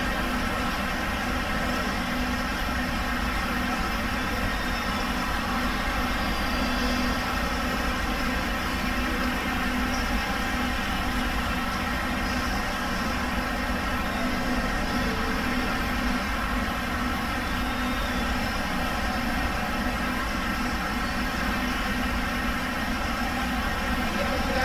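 A steady mechanical hum, even and unchanging, made of many held tones.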